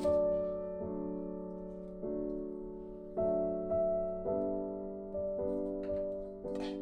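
Background music: a slow, gentle piano melody, its notes and chords struck every second or so and left to fade.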